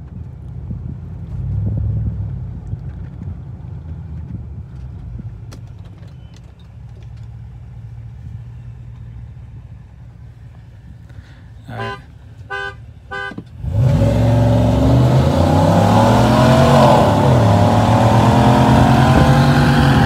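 Chevrolet Silverado 6.2-litre V8 with a muffler delete idling low, heard inside the cab, then several short car-horn honks, and then the engine going to full throttle for a hard launch from a standstill, about fourteen seconds in. The engine pitch climbs, drops briefly at an upshift, and climbs again.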